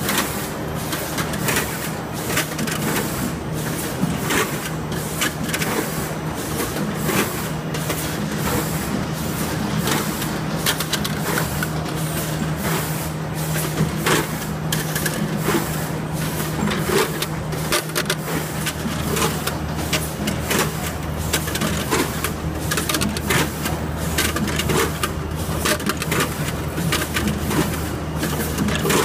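Lemon packing machinery running: a steady low motor hum under a dense, irregular clatter of lemons dropping and knocking against stainless-steel chutes and weigher buckets.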